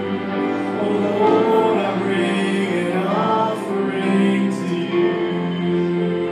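A cello and a Yamaha digital keyboard playing a slow, tender instrumental piece, the cello holding long low notes under the keyboard's melody.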